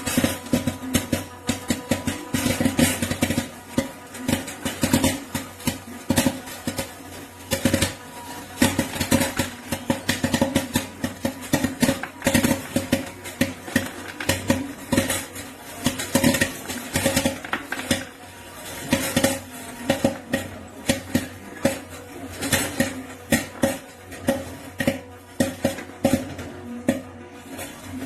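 Klarstein vintage-style 300 W popcorn machine popping corn: a dense, irregular run of sharp pops and clicks over the steady hum of the machine.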